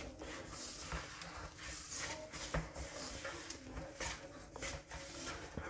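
Fingers rubbing dry flour and semolina with ghee against a steel mixing bowl, working the ghee (moyan) into the flour. Faint, irregular scratchy rubbing with small ticks.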